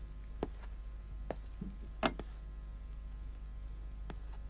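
A handful of small sharp clicks and one light ringing clink about two seconds in, as a French crystal wine glass is picked up from the table and handled, over a steady low hum.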